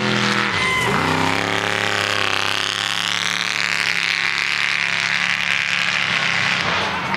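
Off-road race truck's engine revving hard as it passes and speeds away: the engine note dips and climbs back about a second in, then holds high and wavering as it accelerates off.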